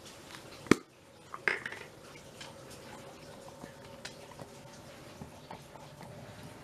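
A sharp knock under a second in, then a ringing clink of stainless steel dog bowls and a plastic pump bottle. After that come faint light clicks as salmon oil is pumped onto dry kibble.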